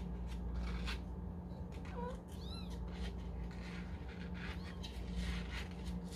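Newborn kitten mewing: a brief faint cry about two seconds in, then a thin, high, rising-and-falling mew right after, amid soft rustling.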